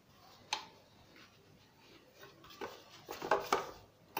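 Thin gullash pastry sheets rustling and crinkling as hands press them into a metal baking tray, with a single sharp tap about half a second in and a run of louder crinkles about three seconds in.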